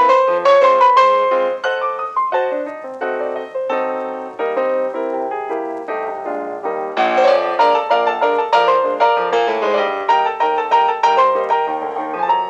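Solo piano music, a gentle run of separate notes that grows fuller and brighter about seven seconds in.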